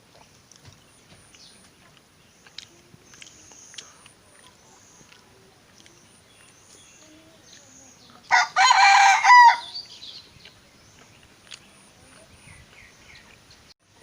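A rooster crows once, loudly, about eight seconds in, the call lasting just over a second. Faint high chirps and small ticks sound the rest of the time.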